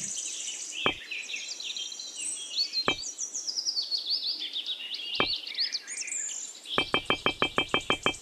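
Birds chirping and singing, many short rising and falling calls, with three single knocks spread through. Near the end a fast, even run of ticks starts, about a dozen a second.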